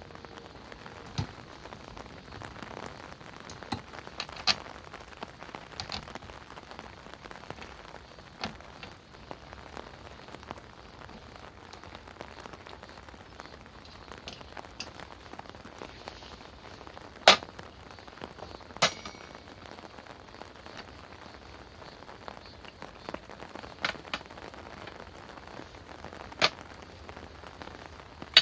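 Steady rain falling, with scattered sharp taps and clicks, a few of them clearly louder than the rest.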